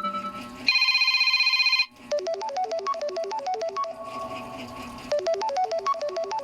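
Lenovo A318 mobile phone ringtones: a brief, fast electronic trilling ring about a second in, then a melodic ringtone of quick synthesized notes whose phrase repeats.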